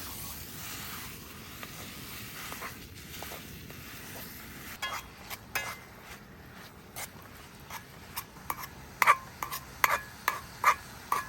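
Italian sausage sizzling in a pan on a butane camp stove. A utensil scrapes and clinks against the pan as it is stirred, the clinks growing louder and more frequent, about two a second, from about nine seconds in.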